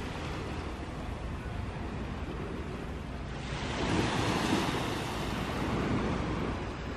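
Small waves washing onto a sandy beach, with wind on the microphone; the surf swells louder about halfway through.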